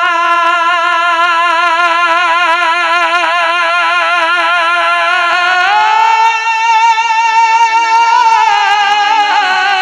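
A man singing one long sustained melisma of a devotional manqabat with strong, even vibrato. The pitch steps up about six seconds in and slides back down near the end.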